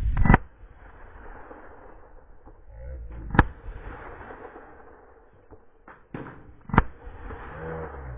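Gunshots from a deer hunter firing at a running buck: two sharp shots about three and a half seconds apart, with fainter knocks between them. The shots are misses.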